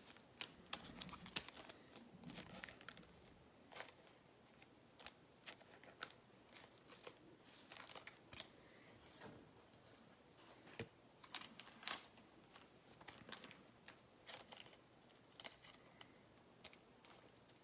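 Faint handling of trading cards and their pack wrappers: scattered light clicks, taps and soft rustles, a few every second or two.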